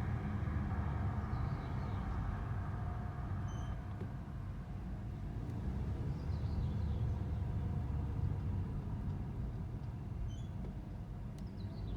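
Vehicle driving slowly in first gear, a steady low rumble with faint, short high squeaks every few seconds: the squeak that shows up at about 13 km/h.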